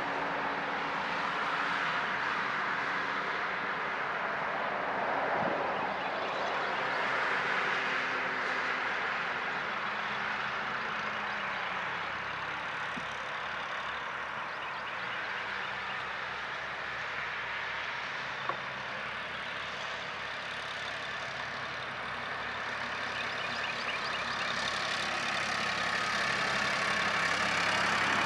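Road traffic on a two-lane road: a tractor backhoe and cars driving off, with steady tyre and engine noise. One engine note slowly drops in pitch over the first half as it moves away, and the traffic grows louder near the end.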